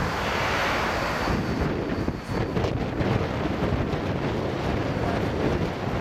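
Wind buffeting the microphone: a rough, fluctuating rumble, with road traffic underneath.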